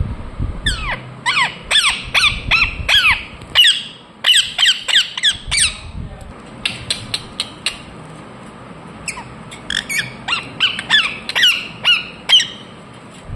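Ringneck parrot calling: rapid series of short, sharp squawks, each dropping steeply in pitch, in four runs of a few seconds with brief pauses between them.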